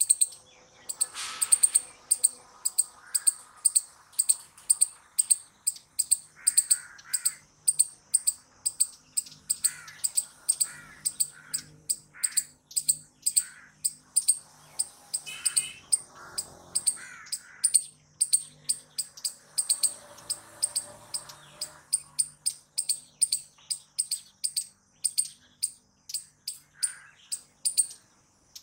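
Palm squirrel's high-pitched chirping alarm call, a sharp chip repeated evenly about two to three times a second without a break.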